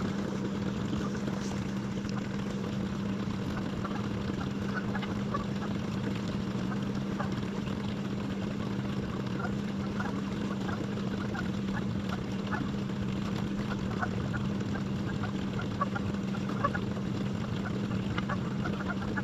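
A fishing kayak's trolling motor runs steadily with a low hum as the kayak moves along. Short goose honks are scattered through, becoming more frequent after the first few seconds.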